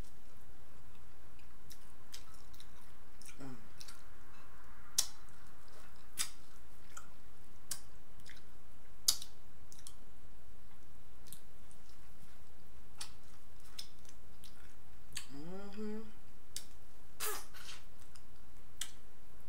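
Close-up eating of corn on the cob: scattered sharp, wet mouth clicks and smacks from chewing, with a brief rising hum of the voice about two thirds of the way through.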